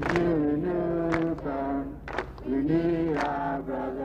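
A crowd chanting in unison, long drawn-out syllables that rise and fall in pitch, with sharp strikes about once a second in time with the chant.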